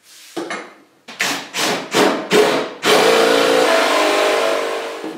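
A Bosch drill boring a 35 mm hinge-cup hole in a cabinet door with a Forstner bit, cutting steadily from about three seconds in. Before that come about five short, separate bursts of sound.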